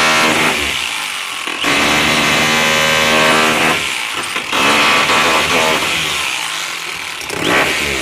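Rotary hammer running in several long bursts, its motor pitch rising and falling as the trigger is worked, with short dips between bursts.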